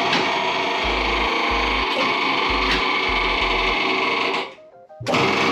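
A machine running with a steady, harsh mechanical whirr that cuts out about four and a half seconds in and starts again half a second later; it is making horrible sounds.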